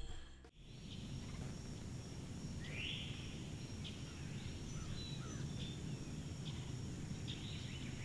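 Quiet woodland ambience with birds calling: two rising chirps about three seconds in and again near the end, with a few short high notes between them over a steady faint hiss.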